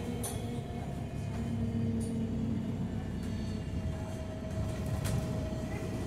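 Interior of an Alexander Dennis Enviro 200MMC single-deck bus on the move: its engine and Voith automatic gearbox run with a steady low rumble and road noise, under a faint steady whine. There are a couple of brief knocks or rattles.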